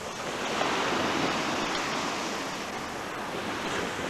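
Sea waves breaking on the shore: a wash of surf that swells about half a second in and slowly ebbs.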